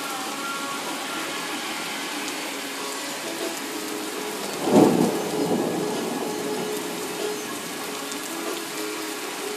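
Steady rain, with a sudden clap of thunder a little before halfway through that rumbles away over a second or two.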